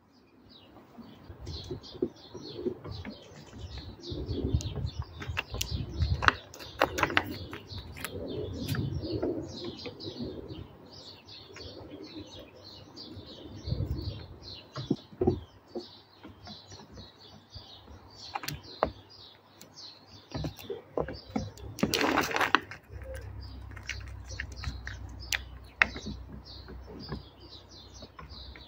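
Small birds chirping continuously, with scattered sharp clicks and taps close by as a grey squirrel handles peanuts on a wooden garden table. A louder rustling burst comes about 22 seconds in.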